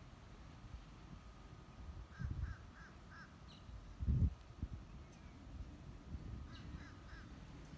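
A bird calling in two short runs of three or four quick, evenly spaced calls. A brief low rumble on the microphone about four seconds in is the loudest sound.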